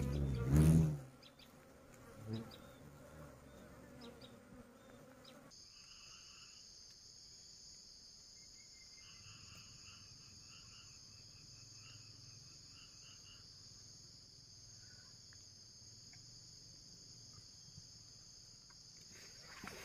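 Insects buzzing in one steady, continuous high-pitched drone that comes in sharply about five seconds in, with faint chirping in the middle. In the first second a louder low-pitched sound stops abruptly.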